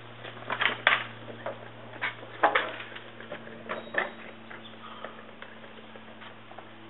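A scatter of light clicks and taps over a faint steady hum, the taps thinning out after about four seconds.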